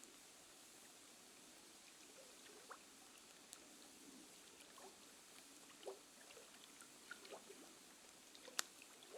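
Near silence: faint steady background hiss with scattered small soft pops and clicks, and one sharper click about eight and a half seconds in.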